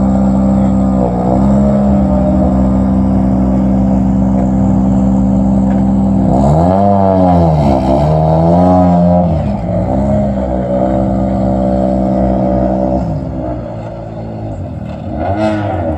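Porsche 997 race car's flat-six engine idling steadily, with throttle blips: a short one about a second in, a run of revs rising and falling between about six and nine seconds in, and one more near the end.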